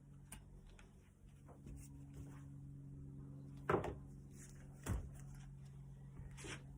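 Light clicks and knocks of parts and tools being handled on a workbench during a bicycle hub service, with two louder knocks in the middle and a smaller one near the end, over a steady low hum.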